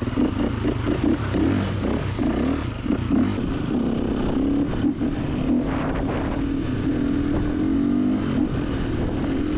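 Gas Gas 350 dirt bike engine running under way, its pitch rising and falling with the throttle as the bike is ridden.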